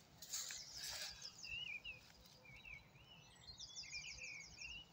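Songbirds singing faintly: short warbled phrases, with a rapid high trill a little past halfway.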